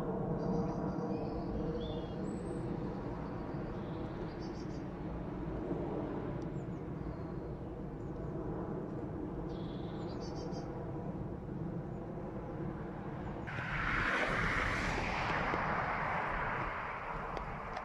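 Distant Boeing 747 jet engines, a steady low rumble from the four-engined airliner climbing away high overhead, with a few bird chirps. About three quarters of the way through, a louder rush of noise comes in for a few seconds.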